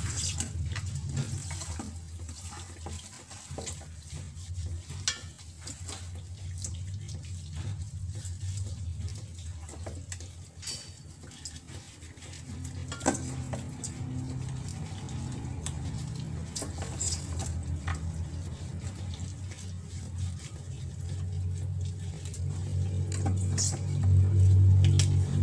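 Raw chicken pieces in marinade being mixed by gloved hands in a stainless steel bowl: wet squelching and handling, with scattered clicks and knocks of the pieces against the metal bowl.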